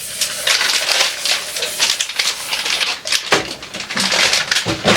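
A rapid, irregular run of small clicks and crackles, like kitchen items being handled and clattered.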